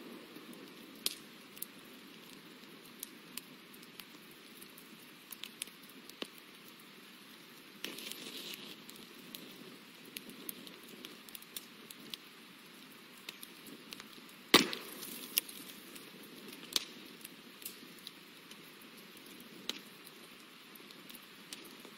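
Faint steady hiss with scattered light clicks and taps from painting at a desk with watercolour brushes. There is a brief rustle about eight seconds in and one sharper knock about two-thirds of the way through.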